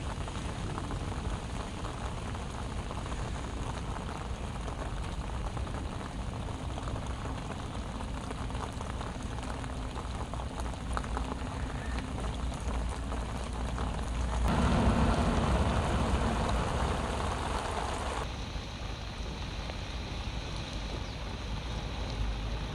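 Steady rain falling on the open water of a reservoir, an even hiss that grows louder and fuller for a few seconds past the middle before settling back.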